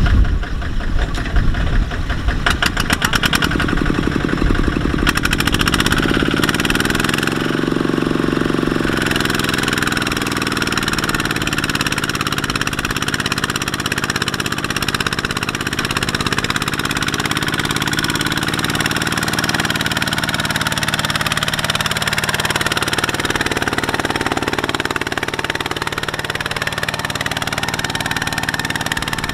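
Kubota ZT155 single-cylinder diesel of a two-wheel walking tractor working under load, dragging a loaded trailer through deep mud. A fast beat of firing strokes in the first few seconds, then the revs climb and hold steady, with slight rises and falls.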